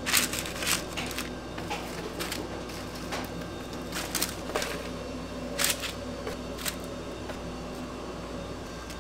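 Crisp fried pork pieces being set by a gloved hand onto kraft paper in a metal serving tray: a few short, sharp rustles and light taps, over the steady hum of kitchen equipment.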